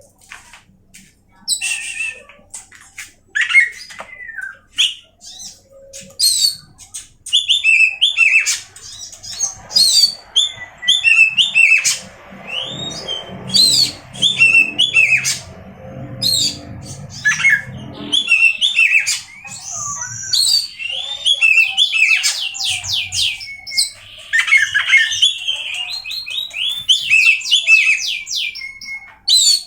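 Oriental magpie-robin (kacer) singing a loud, varied song of whistles, harsh notes and fast runs of repeated notes. A low rumble runs underneath for several seconds midway.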